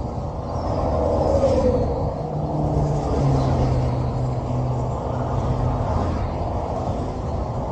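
Interstate traffic passing close by: a steady rush of tyre and engine noise that swells as vehicles go past, with a low engine hum that drops in pitch about three seconds in.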